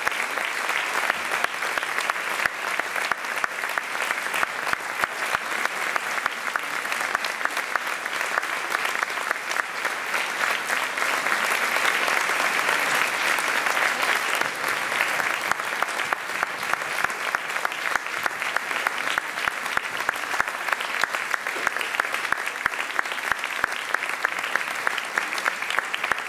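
Audience applauding, many hands clapping steadily, swelling a little louder midway.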